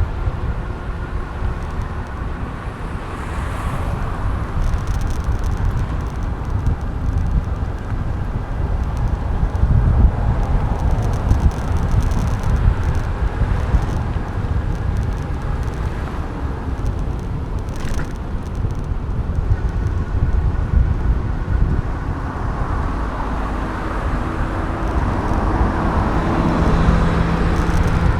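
Wind rumbling on a handlebar-mounted camera's microphone as a bicycle rides through city streets, with car traffic around it. A single sharp click about two-thirds of the way through, and a vehicle engine hum near the end.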